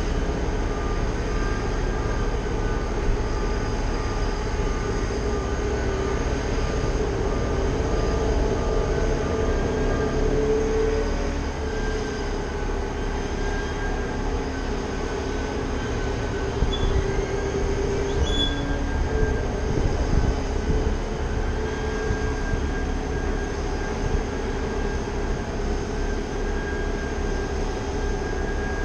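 Heavy diesel engine running steadily with a droning whine over it, from the crane truck working the tree removal, with a few short clanks around the middle.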